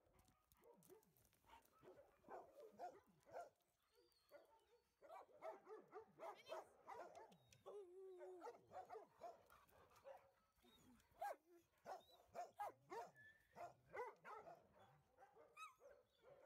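Several dogs barking and yipping in short, overlapping calls, faint, and much busier from about five seconds in.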